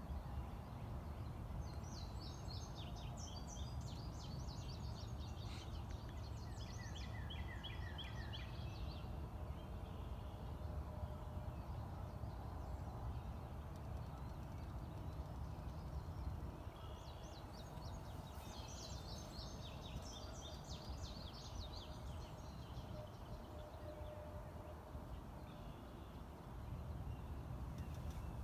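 Songbirds singing rapid, repeated trills in two bouts, one starting about two seconds in and another about seventeen seconds in, over a steady low rumble.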